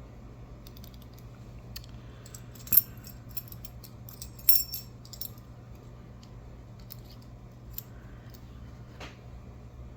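Small metal parts clicking and clinking as a lock, its key and picking tools are handled, with two sharper clinks about three and four and a half seconds in and a few faint ticks after.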